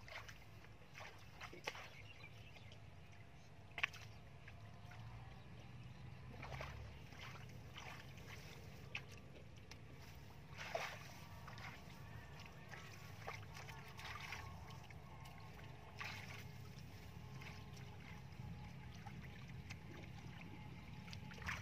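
Hands sloshing and splashing in shallow muddy water, in short scattered splashes over a low steady rumble.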